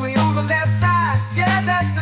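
Motown-style soul music with a steady beat and a bassline under a melodic lead line.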